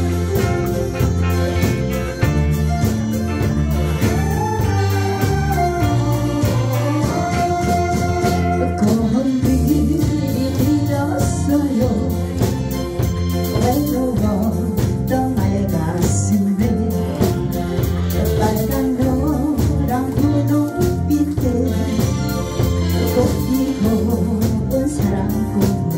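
Live band of drums, electric guitar, bass guitar and keyboard playing a Korean trot song, with a woman singing lead through a microphone and PA; her voice comes in a few seconds after an instrumental opening.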